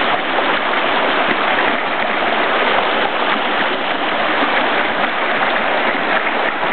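Shallow mountain river rushing and churning over stones, a steady unbroken rush of water.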